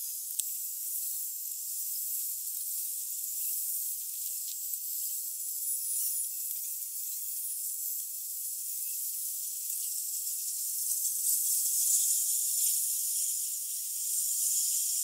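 Steady high-pitched hiss with a few faint clicks, swelling slightly past the middle.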